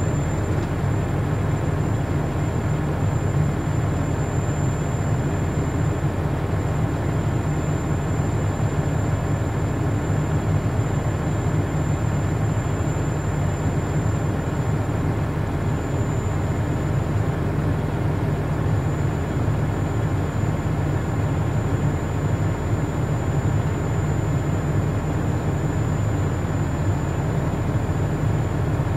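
Heavy truck's engine idling, a steady low rumble heard from inside the cab.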